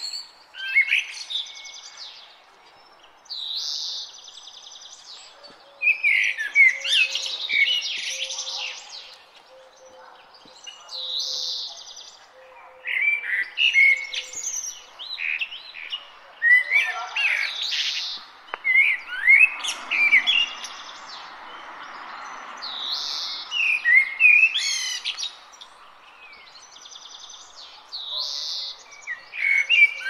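Songbirds singing in repeated short phrases of chirps, slurred whistles and fast trills, a new phrase every few seconds, over faint steady background noise. A soft low rush swells and fades just past the middle.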